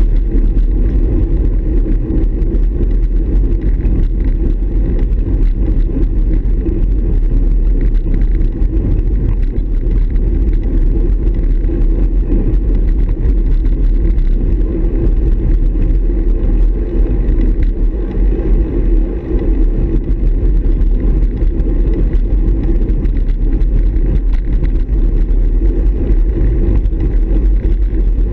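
Steady, loud low rumble of wind buffeting and road vibration on a road bike's handlebar-mounted action camera, riding in a pack of cyclists.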